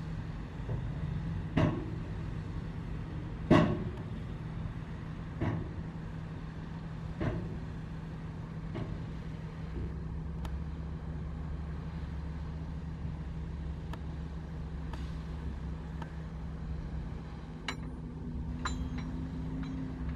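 Heavy diesel earthmoving machinery running with a steady engine drone. Sharp metallic clanks sound about every two seconds in the first half; the second is the loudest and they fade away after that. A few lighter clicks come near the end.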